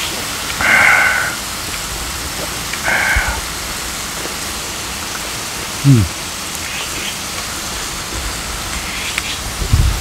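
Beef slices sizzling on a grill pan, a steady crackling hiss. Two brief louder sounds come about a second and three seconds in, and a short low falling sound about six seconds in.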